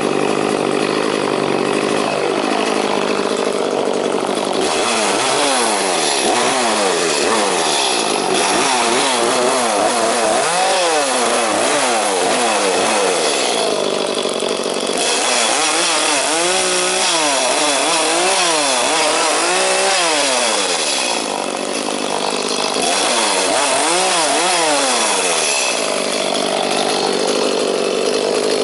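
Petrol two-stroke chainsaw cutting through tree branches. It idles steadily at first, then from about five seconds in its engine revs up and drops back again and again as it bites into the wood, and it settles back to idle near the end.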